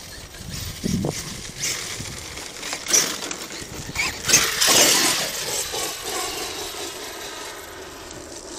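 Arrma Kraton 8S RC monster truck's brushless electric motor whining up and down in pitch as it is throttled, with its tyres spinning and scraping through debris as it backs out of brush. The loudest burst comes about four to five seconds in.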